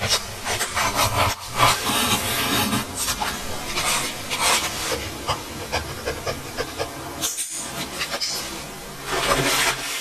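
Pen nib scratching across paper in many short strokes: handwriting in a journal.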